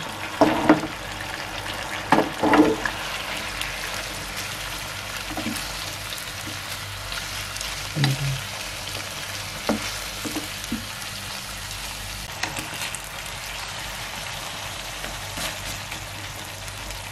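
Chicken pieces sizzling in oil and a little water in a frying pan while a wooden spatula stirs them. There are occasional knocks and scrapes of the spatula against the pan, loudest in the first three seconds and again around eight to ten seconds in.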